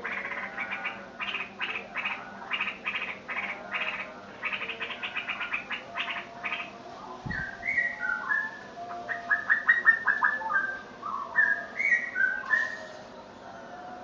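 Sooty-headed bulbul held in the hand calling: a fast run of short, harsh notes for the first half, then clear whistled notes that jump between pitches, with a quick rapid trill in the middle of them. A brief low bump comes about seven seconds in.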